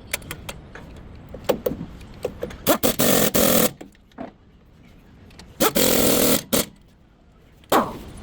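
Pneumatic impact wrench running in two bursts of about a second each and a short one near the end, with sharp metallic clicks of tools being handled between them.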